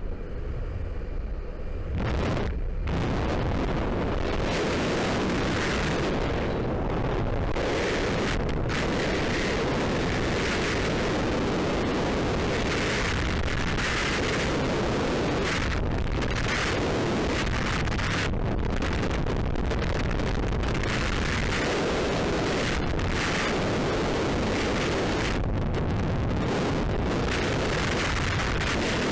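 Freefall wind rushing over a skydiver's helmet-camera microphone: a loud, steady, buffeting rush that comes up to full strength about two seconds in, just after the exit from the aircraft.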